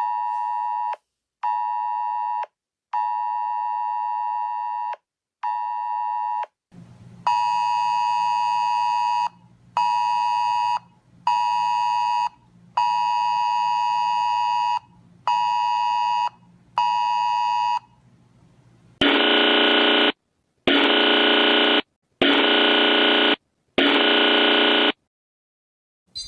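Electronic emergency-alert tones: a two-tone beep pulsing on and off in uneven lengths, then longer beeps over a low steady hum. Near the end come four louder, harsher buzzer blasts of about a second each.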